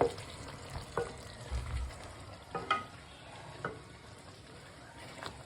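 Tomato stew sizzling gently in a pot on the stove, with about half a dozen sharp clinks of utensils against metal and a brief low thump.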